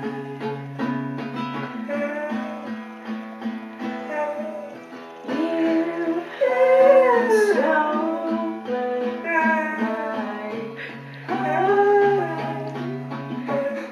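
A song played on a strummed acoustic guitar with a singing voice.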